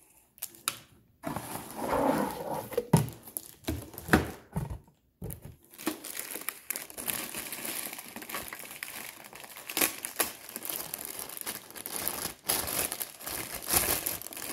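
Clear plastic wrapping crinkling as a wrapped popcorn bucket is handled and turned in the hands. Over the first few seconds come scattered knocks and rustles; after that the crinkling is dense and steady.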